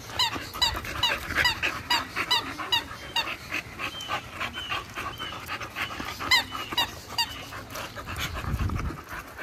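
Dog vocal sounds: a quick run of short high-pitched squeaks, about three a second, for the first few seconds, then a few longer drawn-out ones, over dog panting.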